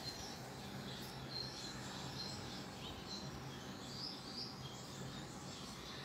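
Small cage birds chirping faintly: scattered short, high chirps over a steady low hum.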